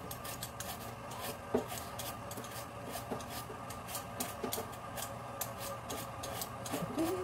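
Small knife peeling the skin off a sweet potato by hand: quick, irregular scraping strokes, several a second.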